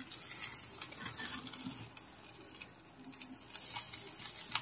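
Faint sizzling and crackling of butter-brushed chicken kabab skewers grilling on a wire rack directly over a gas burner flame, with a light click near the end.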